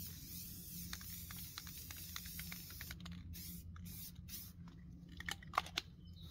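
Aerosol can of Rust-Oleum paint-and-primer spray paint hissing in short bursts as a steel target is repainted, with scattered light clicks and a steady low rumble underneath.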